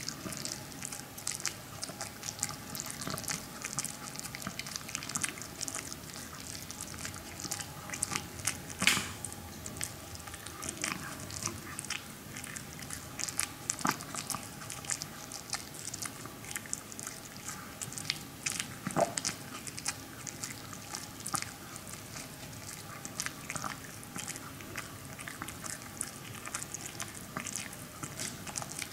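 A Maltese dog chewing a dried pig ear slice: irregular crunches and clicks of its teeth on the chew, with louder crunches about nine seconds in and again around nineteen seconds.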